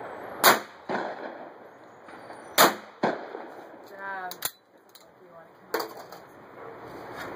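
Over-under shotgun firing two shots about two seconds apart at a pair of clay targets. Each loud report is followed about half a second later by a softer crack, and a few sharp clicks come later.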